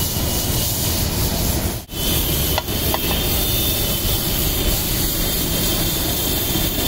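Diced vegetables and corn sizzling in butter on a hot flat iron griddle over a gas burner, with a metal spatula scraping and stirring them. The sizzle is steady and cuts out briefly about two seconds in.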